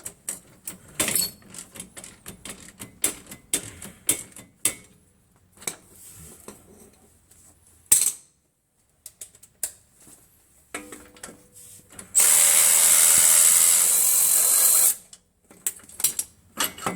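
Metal hand tools and sockets clinking and clanking in short knocks, then about twelve seconds in a power tool runs steadily for about three seconds, the loudest sound, and cuts off.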